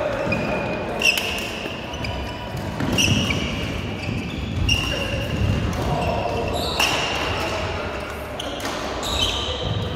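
Badminton rally in a large hall: shoes squeaking repeatedly on the court mat as players move, with several sharp cracks of rackets striking the shuttlecock, the loudest about a second in.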